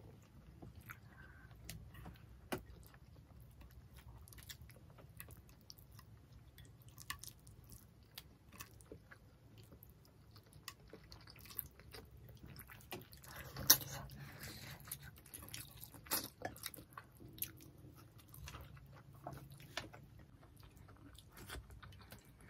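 Close-up eating sounds of people eating coconut-milk-stewed tilapia by hand: quiet chewing, mouth smacks and soft clicks of fish meat being picked from the bones, with a few louder sharp clicks about halfway through.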